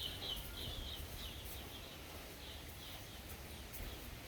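Gusty wind rumbling on the microphone, with a bird chirping in a quick run of short calls over the first second and a half and a few more later.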